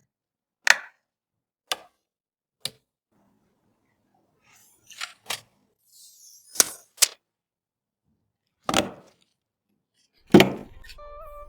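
Sharp clicks and taps of PC hardware and its packaging being handled and set down: a series of separate clicks, the first three about a second apart, then a heavier thud near the end.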